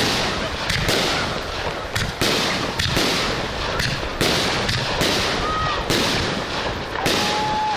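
Aerial firework shells bursting in quick succession, about one or two loud bangs a second, each trailing off in echo. A few short whistling tones sound in between, one held longer near the end.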